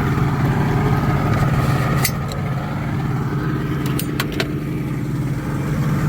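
Boat outboard motor running steadily at low speed, with a few sharp clicks about two seconds and about four seconds in.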